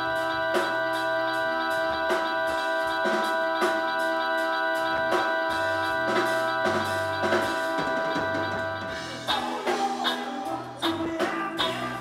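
Live rock band with electric guitars and drum kit: a chord held and ringing over a steady drum beat, then about nine seconds in the band breaks into a busier, choppier part with sharper drum hits.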